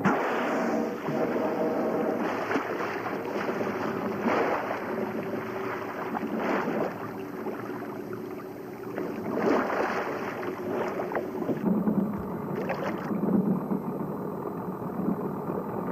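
A boat's engine running steadily on open water, under wind and water noise, with several louder rushing bursts. The engine tone shifts lower about twelve seconds in.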